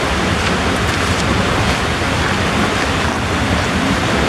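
A large waterfall's falling water, heard as a steady, even rush of noise.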